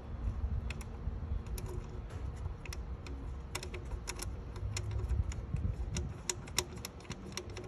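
Irregular light clicks and taps of one-handed work on a car's wiring and ground connection, over a low rumble of the camera being handled.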